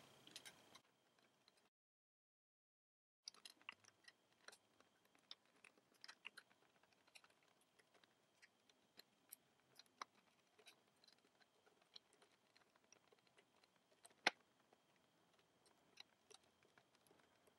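Faint, scattered clicks and ticks of an orange plastic loom hook working rubber bands over the plastic pegs of a FriendlyBands Sunshine Loom, with one sharper click late on.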